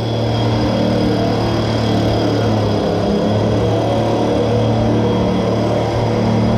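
Engine of a farm machine running steadily at a constant speed, with a continuous hum and a faint high whine above it.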